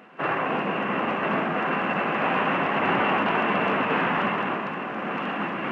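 Jet aircraft in flight: a steady rush of engine noise with a faint high whine, cutting in suddenly just after the start.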